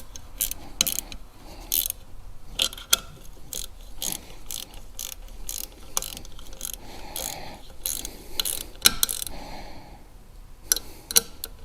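Hand ratchet wrench clicking in short irregular runs as the bolts of a work-light bracket are tightened.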